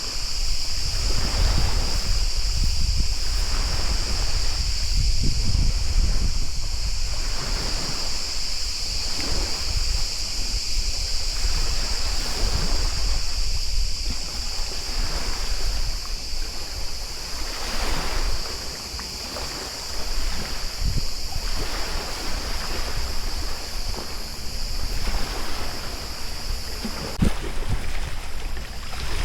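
Sea water splashing and lapping against a stand-up paddleboard, swelling about every one and a half to two seconds as with paddle strokes, with wind rumbling on the microphone. A steady high-pitched buzz runs underneath.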